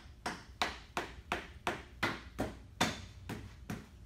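A mallet striking the rear axle over and over, about three sharp knocks a second, driving the axle through the swing arm and the snow-bike track kit's mounts.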